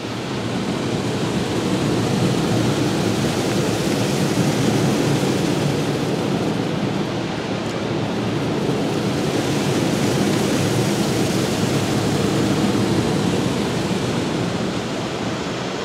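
High-pressure rinse jets of a Kärcher Opti Wash 8000 gantry car wash blasting water onto the car's windshield and body, heard from inside the car. It is a loud, steady hiss and drumming of water that starts abruptly and cuts off near the end.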